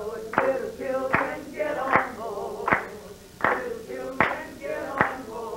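Voices singing a spiritual, with steady hand claps on the beat, about one clap every three-quarters of a second.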